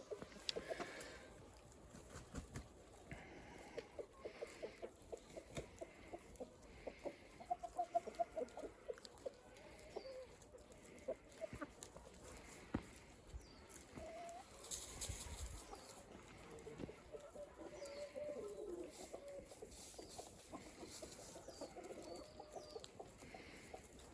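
Free-range chickens clucking in runs of short, quick notes, with scattered sharp ticks and a brief rush of noise about fifteen seconds in.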